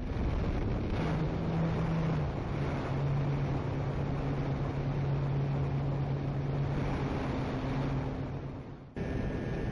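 Air rushing over the onboard camera microphone of a Multiplex TwinStar RC plane in flight, with the steady hum of its twin propellers. About nine seconds in the sound cuts abruptly to a different steady hum with a thin high whine.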